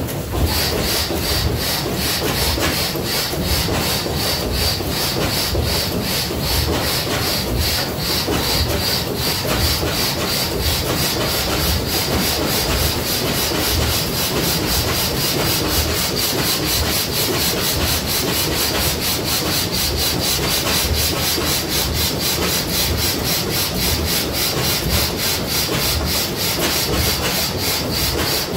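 Circa-1913 Turner Fricke four-cylinder stationary engine (13 x 13 in cylinders) running steadily, a fast, even beat of strokes that holds level throughout.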